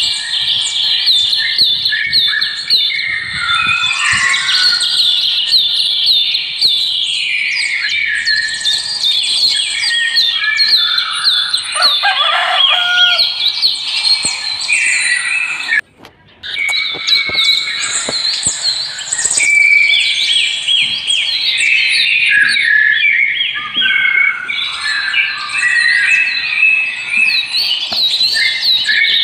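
Many small birds chirping and twittering at once in a dense, continuous chorus of short high chirps and trills. It cuts out for a split second about halfway through.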